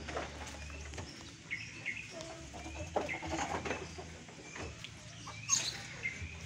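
Farmyard birds calling: scattered short chirps and clucks, the loudest call about five and a half seconds in.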